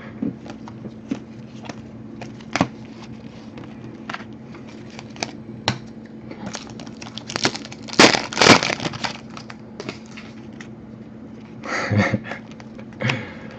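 Trading cards and foil card-pack wrappers being handled: scattered crinkling and small clicks, with a louder flurry of crinkling about eight seconds in. A faint steady hum sits underneath.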